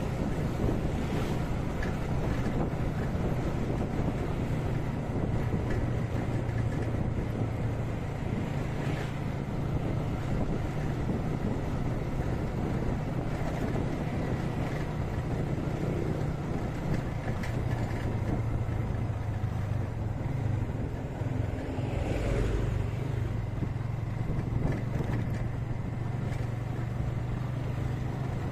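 Motorcycle engine running steadily while riding at road speed, with wind buffeting the microphone.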